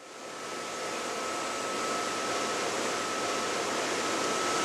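Steady hiss and hum of running machinery and air handling in a machine shop, with a thin steady whine. It rises in level over the first second or so, then holds even.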